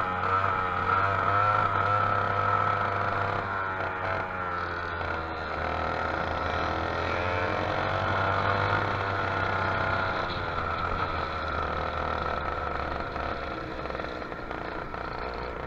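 Dirt go-kart engine running, heard close up from a camera mounted on the kart, its pitch rising and falling through the turns, with other karts' engines nearby. The engine note eases somewhat in the last few seconds.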